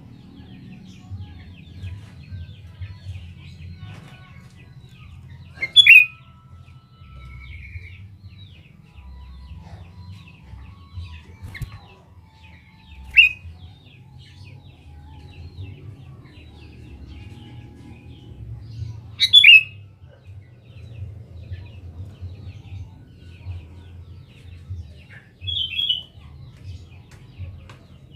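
Sooty-headed bulbul (kutilang) calling loudly in short phrases, four times, about six seconds apart. Many faint bird chirps and a low steady rumble run underneath.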